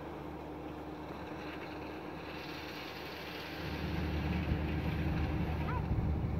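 Wind rumbling on the microphone over a steady low hum, the rumble growing stronger about two thirds of the way through; a brief high chirp near the end.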